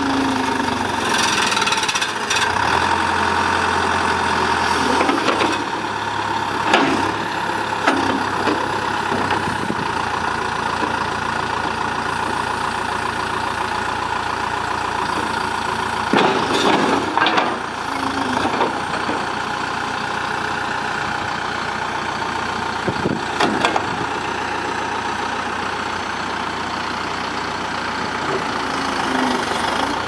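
Diesel engine of a 2011 Terex TLB840 backhoe loader running steadily while the machine works its loader and backhoe hydraulics, with a steady high whine over the engine. Several sharp clunks and knocks come from the moving arms, bucket and stabilizers, a cluster of them about two-thirds of the way through.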